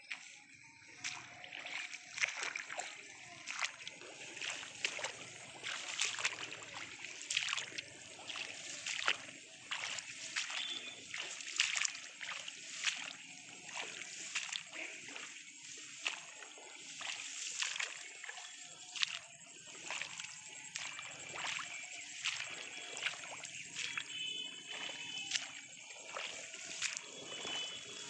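Someone walking through a wet rice paddy: irregular sloshing, splashing steps, with rice leaves rustling and brushing close by, a stroke or a few every second.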